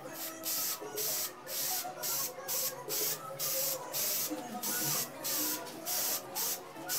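Aerosol spray-paint can spraying in short hisses, about two a second.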